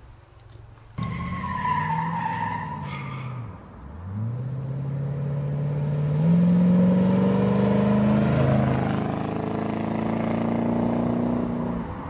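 Chevrolet Corvette C3's V8 engine driving up and accelerating, starting abruptly about a second in; its pitch dips once, then climbs steadily from about four seconds in as it gets louder.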